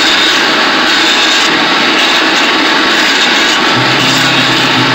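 Angle grinder with a sanding disc running steadily against the wooden planking of a boat hull, grinding off the old finish. A low hum joins near the end.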